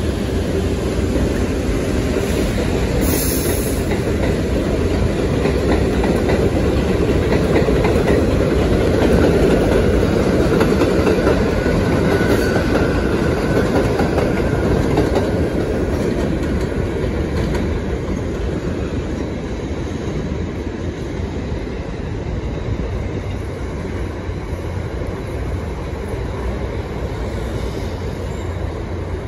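R62A subway train running on an elevated steel track, its wheels clattering over the rail joints. The rumble builds for about the first ten seconds, then fades as the train moves away.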